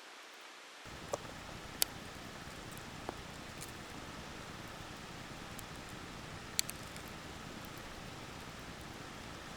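Wood campfire burning: a steady hiss with a few sharp crackling pops.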